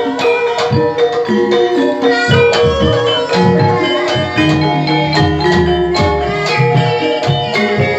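Javanese gamelan music: metallophones ring out a melody of struck, sustained notes over steady low drum strokes.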